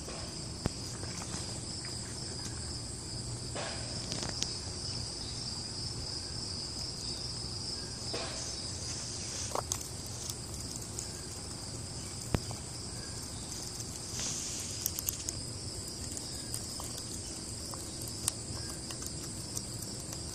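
A steady, high-pitched insect chorus, with a few sharp clicks scattered through it.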